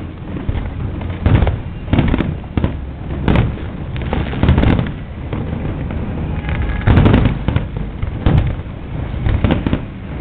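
Aerial fireworks bursting one after another: repeated booms and crackles over a constant low rumble, with the loudest cluster about seven seconds in.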